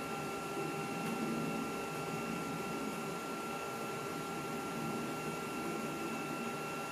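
Steady machine hum of a running Macintosh SE, a low noisy drone with thin, unchanging whining tones over it.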